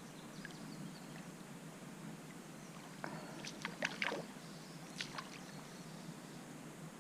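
Water splashing and lapping in a shallow creek around a wading angler's float tube, with a quick cluster of short sharp splashes about three to four seconds in and another just after five seconds.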